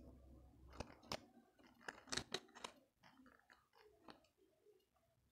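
Pleated paper fans crinkling and crackling as they are handled, with a cluster of sharp crackles between about one and three seconds in.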